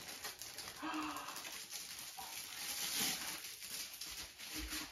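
Soft rustling and handling noise as newly unboxed binders are unwrapped and handled, with a few short, wordless vocal sounds of delight.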